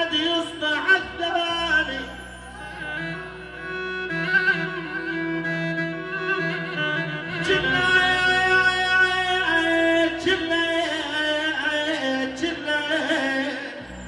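Music: a held, wavering melody over a steady low drone.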